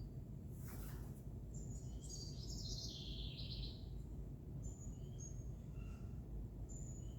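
Small birds chirping and calling, with a burst of overlapping high chirps about two to four seconds in and single short chirps after, over a steady low background rumble.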